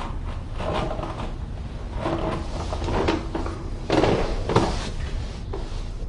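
Someone moving about a small room: a few short knocks and rustles, like a cupboard or drawer being handled, over a low steady hum.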